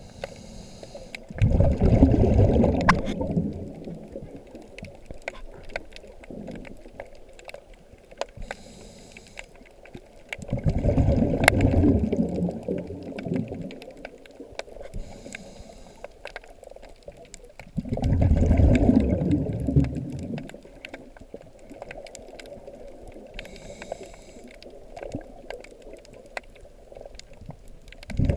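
A scuba diver breathing through a regulator, heard underwater by the camera: a short hiss of inhalation, then a loud rumbling gush of exhaled bubbles lasting two to three seconds. The cycle comes three times about eight seconds apart, with a fourth exhalation starting near the end.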